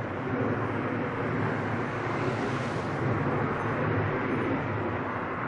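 Distant Boeing 767 jet engines at takeoff thrust during the takeoff run, a steady low rumble that swells slightly around the middle.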